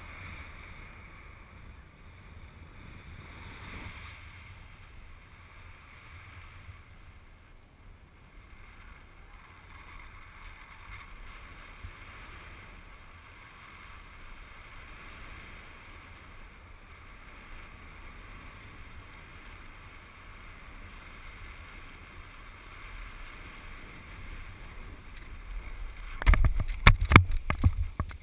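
Steady wind rushing over the microphone of a parachutist's body-worn camera during the descent under an open canopy. About two seconds before the end, a run of loud, irregular thumps and scuffs as the parachutist lands on the grass.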